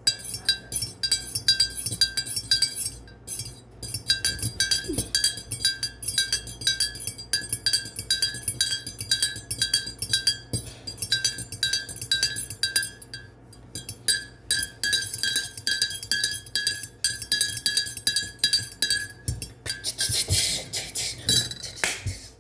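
A fork stirring tea in a cup, clinking against the inside wall about three times a second with a bright ringing tone. The stirring pauses briefly twice, and a louder scraping, rustling sound comes near the end.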